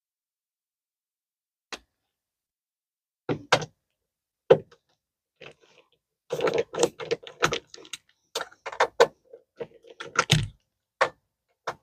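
Clicks, taps and knocks of a screwdriver and metal hardware being worked at a travel trailer's door strike plate: a lone click, a few separate knocks, then a dense run of clatter over the last half.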